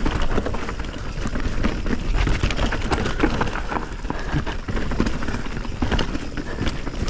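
Mountain bike riding fast down dry dirt singletrack: tyres rolling over dirt, leaf litter and stones, with frequent clicks and clatter from the bike over the bumps.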